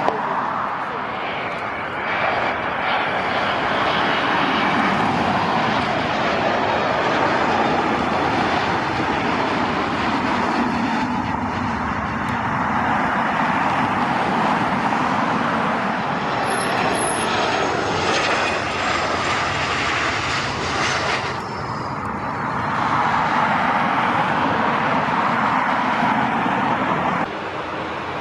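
Turbofan engines of several jet airliners, one after another: a Boeing 787 landing, then a Boeing 737, then an Airbus A350 on the ground near the end. The jet noise runs steadily and changes sharply with each change of aircraft.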